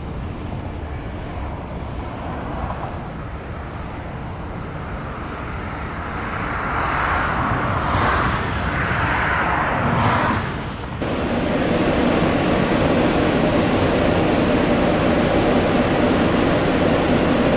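Jet airliner engine noise as an aircraft passes, swelling to its loudest between about six and eleven seconds in. It then cuts off abruptly and is replaced by a steadier, deeper engine noise.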